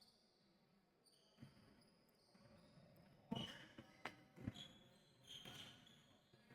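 Faint basketball bounces on a hardwood court: a few separate thuds, the loudest about halfway through.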